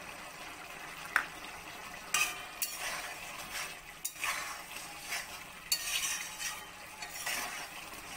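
A cooking spoon stirring a simmering curry in an aluminium kadai, scraping against the pan in an irregular string of strokes, with one sharp clink about a second in.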